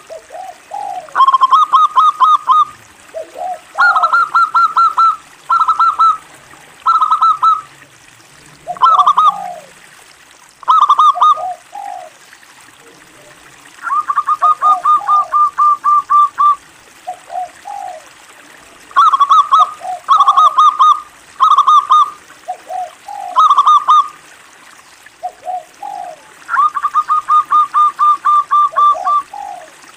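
Zebra dove (perkutut) singing: repeated phrases of quick, evenly spaced staccato notes, some of them long runs of about a dozen notes, mixed with shorter, lower notes.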